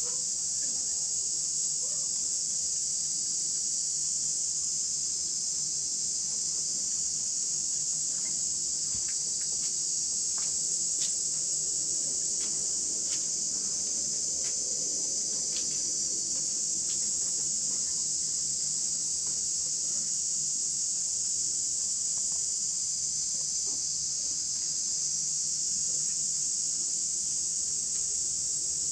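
Steady, high-pitched drone of an insect chorus, unbroken throughout, with a few faint clicks in the middle.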